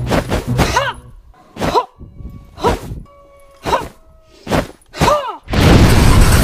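Added martial-arts sound effects: a run of short whooshes about once a second, each with a tone that rises and falls. About a second before the end comes a loud, sustained rush for a burst of magic fire.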